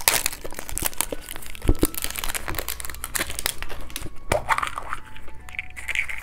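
Close-up of a plastic surprise-egg capsule being twisted and pried open by hand: a run of plastic clicks and cracks, a heavier knock under two seconds in and a sharp snap just after four seconds. A wrapper packet inside crinkles near the end.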